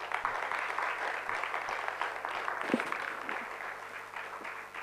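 Audience applauding: a dense, steady clapping that fades a little toward the end.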